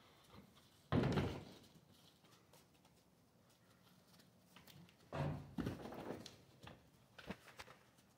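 A heavy wooden thud about a second in, then a cluster of thuds and knocks about five seconds in, with a few lighter knocks after: sheep knocking against the barn's wooden boards.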